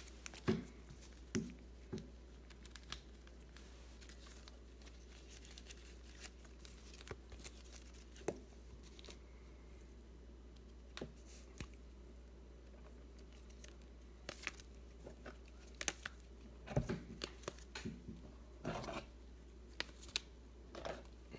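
Trading cards and rigid plastic card holders handled by gloved hands: faint, scattered rustles and clicks, sparse at first and busier in the last several seconds.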